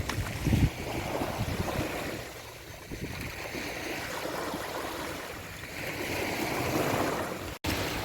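Sea waves washing onto a beach, the surf swelling and fading, with wind buffeting the microphone in the first second.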